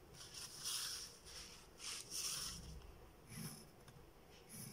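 Pencil scratching on paper in a few short strokes, drawing lines along a plastic ruler.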